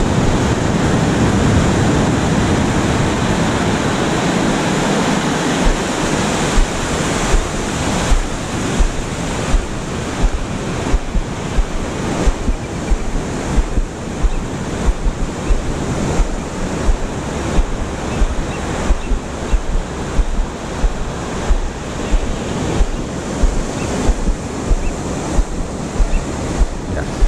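Ocean surf breaking and washing up a sandy beach, with wind buffeting the microphone. From about six seconds in, soft knocks come regularly, about once a second.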